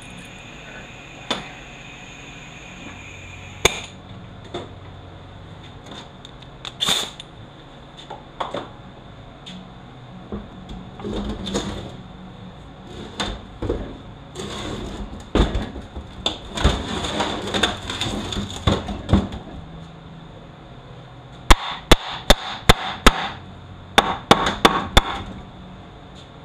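Parts of a Toyota U250E automatic transaxle and hand tools being handled on a shop workbench: scattered clunks, knocks and scraping. About 21 seconds in comes a quick run of sharp taps, then another a couple of seconds later.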